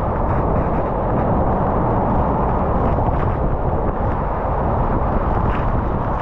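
Steady wind rush and road noise on the camera microphone of a moving motorcycle, with no clear engine note.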